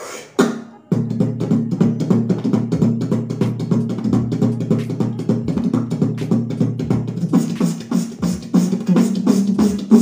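Beatboxing: a fast vocal kick-drum roll, many quick bass hits a second over a steady low hummed tone, starting about a second in. From about seven seconds in, crisper hissing hits join as the roll moves toward PF snare rolls.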